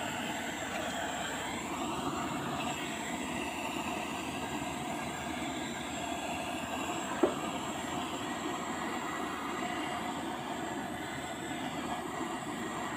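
Handheld gas blowtorch burning with a steady hiss as its flame heats the rusty steel hoe blade, with a single sharp knock about seven seconds in.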